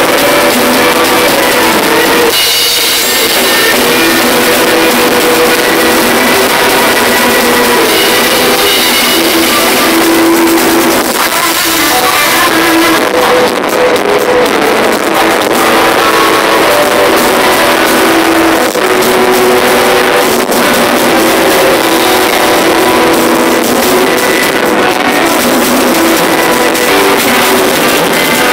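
Live rock band playing loudly, with guitar chords over a drum kit, recorded close with little bass.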